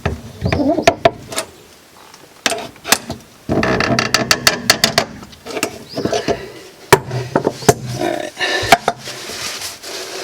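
Metal hand tools clicking and clanking on plumbing fittings while a leaking joint is tightened, with a denser stretch of handling noise about halfway through.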